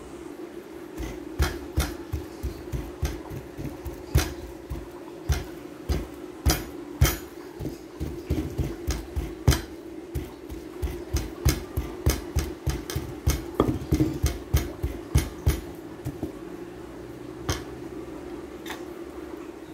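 Wooden pestle pounding boiled unripe bananas in a wooden mortar, mashing them for nilupak: a run of dull thuds about two to three a second that stops near the end, followed by two last strikes. A steady hum runs underneath.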